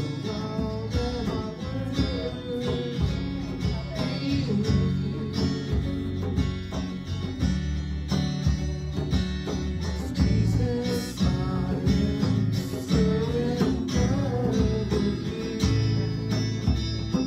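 Two amplified electric guitars playing: strummed chords underneath, and a melody line over them that slides and wavers in pitch.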